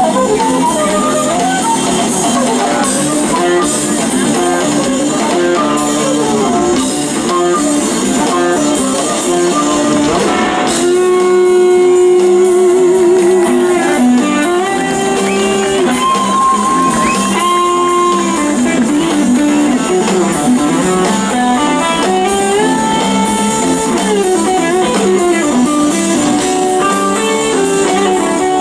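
Live rock band playing an instrumental passage, with a lead electric guitar soloing over the band. About eleven seconds in, the lead moves from quick runs to long held notes with a wavering vibrato.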